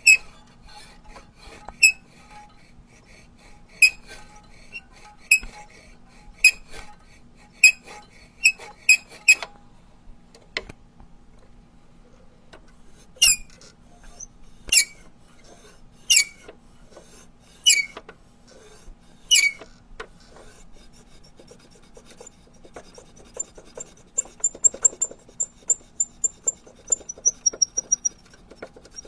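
Rubber duck squeezed again and again, squeaking: a run of short squeaks over the first ten seconds, then five longer squeaks each falling in pitch, then a quick series of short high squeaks near the end.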